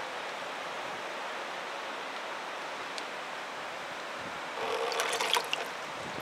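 Steady trickling water hiss from the tank's siphon hose, a large kerosene hand pump drawing out water and droppings. About five seconds in comes a brief burst of gurgling and splashing, with air bubbling up through the tank water.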